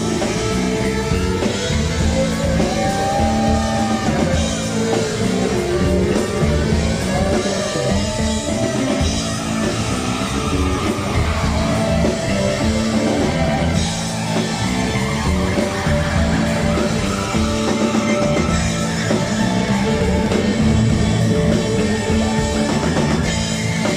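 Live progressive rock band playing: electric guitar, keyboards and drum kit, with a gliding lead line over a steady bass pattern.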